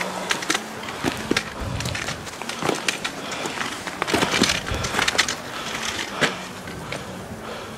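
Footsteps crunching on dry fallen leaves and dry, gritty soil: an irregular run of crackling steps that grows sparser and quieter near the end.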